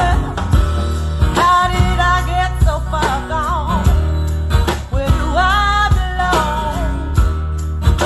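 Recorded music played through Dali Helicon 300 Mk2 hi-fi loudspeakers and picked up by a phone's built-in microphone: a strong steady bass with a wavering lead melody on top.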